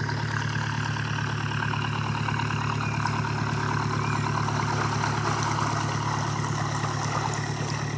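Narrowboat's inboard diesel engine running steadily at low canal speed as the boat passes close by, a steady low hum.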